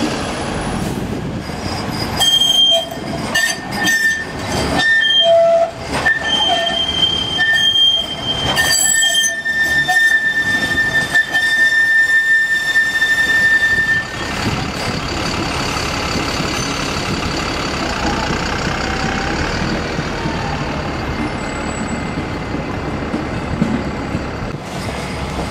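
Manchester Metrolink M5000 tram wheels squealing on a tight street curve: a high steady squeal that comes and goes with several sharp knocks, then holds for about five seconds before stopping about 14 seconds in. After it comes a steadier, lower mix of tram and city street noise.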